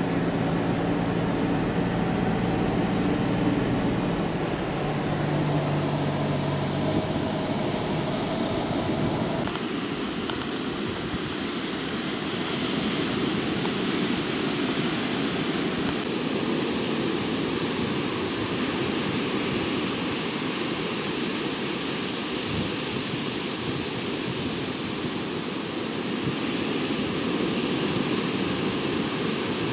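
A car engine runs as the car drives along beach sand, its pitch shifting a couple of times. About nine seconds in it gives way to the steady rush of surf breaking on the shore.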